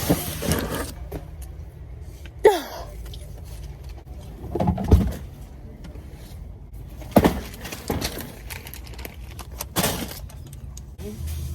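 Steady low hum of a car cabin, with rustling and handling knocks every few seconds and a short falling squeak a couple of seconds in.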